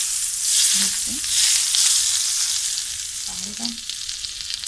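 Hot oil tempered with crushed red chillies (a tadka) sizzles loudly as it is poured from a pan onto cold yogurt. It is a dense hiss that eases off slightly toward the end.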